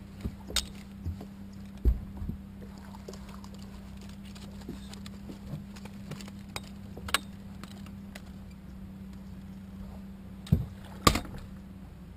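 Scattered knocks and thumps on a bass boat's deck as a fish is fought at the boat and a landing net is readied, the two loudest close together near the end, over a steady low hum.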